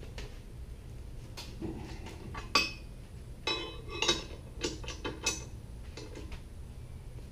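Hand tools clinking against metal as a 3/4-inch wrench and socket tighten the mounting bolts of a jackplate adapter bracket. The clinks come unevenly, about a dozen of them, the loudest a little over two and a half seconds in.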